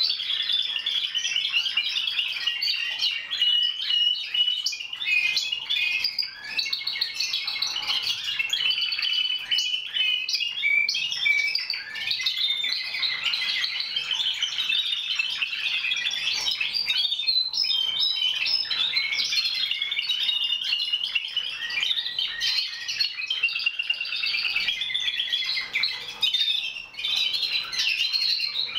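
Many Timbrado Español canaries singing at once, a dense, unbroken chorus of overlapping trills and quick notes.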